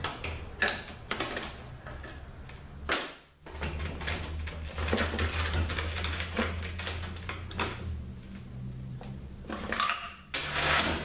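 Metal transmission parts clinking and clattering as they are handled and set down during a THM-125C teardown, with a louder clatter near the end. A steady low hum runs underneath, breaks off briefly about three seconds in, and stops a little before the end.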